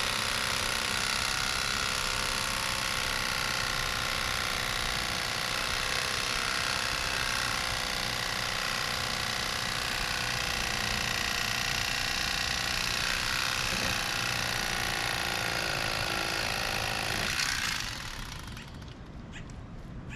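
Electric fillet knife running steadily as it cuts through a fish, its motor cutting off suddenly about 17 seconds in.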